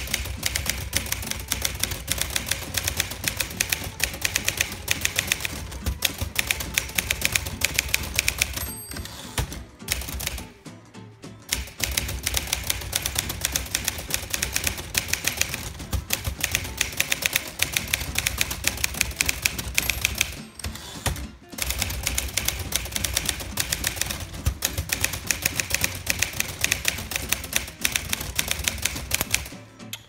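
A 1955 Smith Corona Silent Super manual typewriter being typed on quickly, a steady stream of sharp key strikes. The typing breaks off briefly about a third and about two-thirds of the way through.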